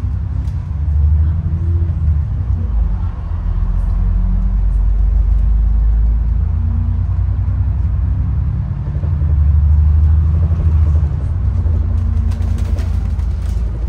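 Bus engine and road rumble heard from inside the cabin while the bus is under way, the engine note rising and falling as it drives.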